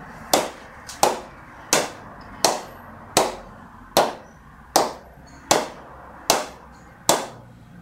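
A four-piece cricket ball bounced repeatedly on the face of a TON Simo 54 English willow bat, a sharp knock about every three-quarters of a second, each with a short ring. The reviewer hears it as a full, even response that tells of power all over the blade.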